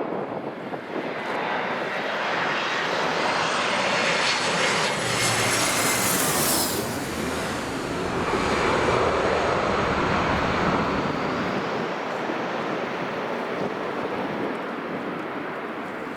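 Airliner passing close by, its engines rising to a loud rushing noise with a high whine that falls in pitch as it goes past, then fading a little. Wind noise on the microphone mixes in.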